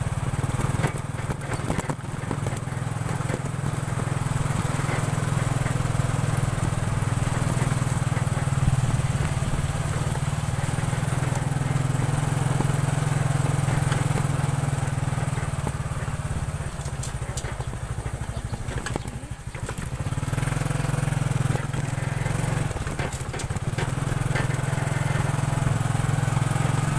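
Small motorcycle engine running steadily under way, with a hiss of wind and road noise over it. The engine note drops briefly about two-thirds of the way through as the throttle eases, then picks up again.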